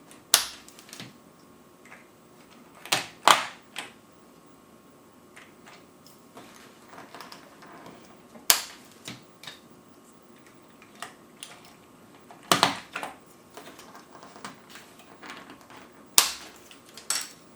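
Replacement keycaps being pushed onto an Amiga 1200 keyboard's key switches, each snapping on with a sharp plastic click, with faint handling ticks in between. There are about seven loud clicks, spaced a few seconds apart, some in quick pairs.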